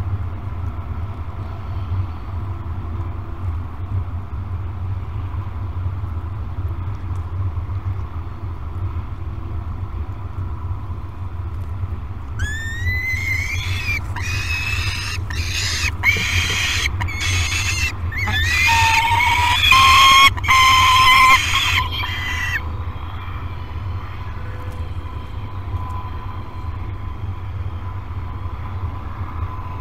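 Young peregrine falcon giving a run of harsh, rising food-begging calls for about ten seconds, loudest near the end of the run, over a steady low rumble.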